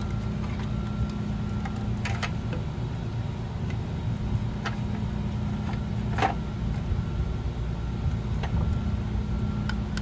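Steady low background hum, with a few faint light clicks of small plastic parts of a toy tank being handled.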